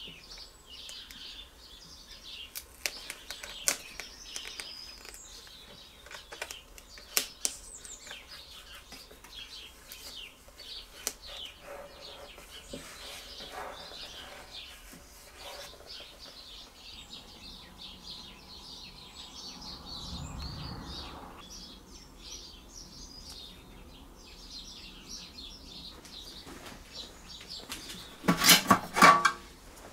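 Small birds chirping in the background, with light clicks and rustles as a sticker is pressed onto the generator's plastic panel. Near the end comes a brief, loud metallic rattle as the fuel cap is fitted onto the tank.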